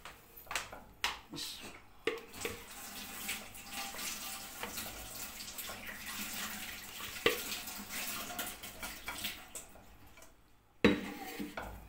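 Red silicone spatula scraping a thick, oily masala paste around a non-stick kadhai and into a blender jar: a wet, crackly scraping with a few sharp knocks, the loudest near the end.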